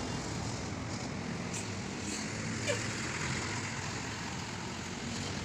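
Road vehicles moving slowly past, a coach bus and a minibus, giving a steady engine and traffic rumble. A short sharp sound stands out about two and a half seconds in.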